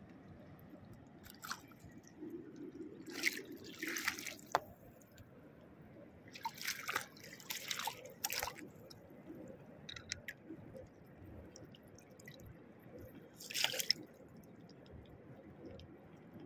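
Shallow seawater splashing and sloshing as someone wades across a rocky reef flat, in a few short spells of splashing a few seconds apart.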